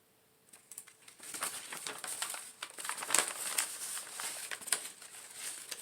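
Plant packaging crinkling and rustling in the hands as a rooted Hoya cutting is unwrapped, with a dense run of irregular crackles starting about half a second in.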